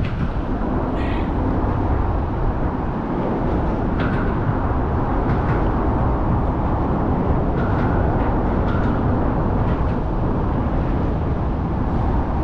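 Steady rushing noise of wind blowing across the microphone, heaviest in the low range and with no rhythm.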